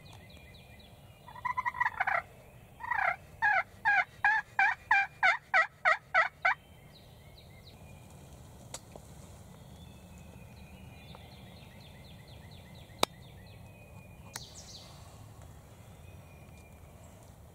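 Loud turkey yelping: a couple of short notes, then a run of about a dozen evenly spaced yelps that stops about six and a half seconds in. Fainter, more distant bird calls follow, with a sharp click near the end.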